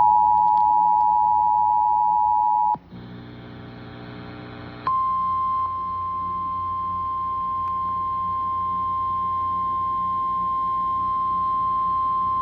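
Emergency Alert System attention signal: two steady tones sounding together over FM radio, cutting off about three seconds in. After about two seconds of a quieter low buzz, a single steady, slightly higher tone starts and holds: the 1050 Hz NOAA Weather Radio warning alarm that comes ahead of a tornado warning.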